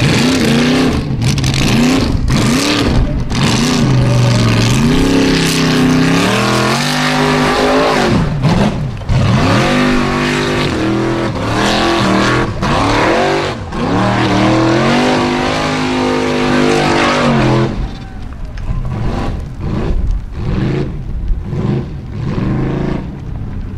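Formula Offroad buggy's engine revving hard in repeated surges, its pitch rising and falling as the wheels spin up a steep dirt hill. About three-quarters of the way through the engine sound drops away sharply, leaving a lower rough noise with a few cracks.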